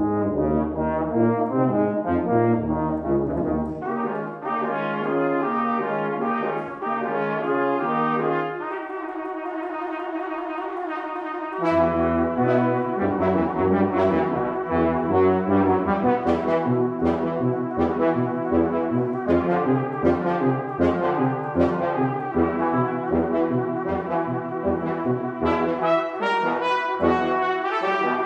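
Brass quintet of two trumpets, French horn, trombone and tuba playing a fast, rhythmic piece. The tuba drops out about four seconds in, and the group thins to a quieter held chord around the nine-second mark. A few seconds later the full ensemble comes back with loud accented notes over a pulsing tuba line.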